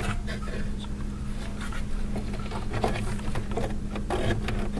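Scattered light clicks and scraping of handling as a CPU heatsink is pressed down and seated onto a processor, over a steady low hum.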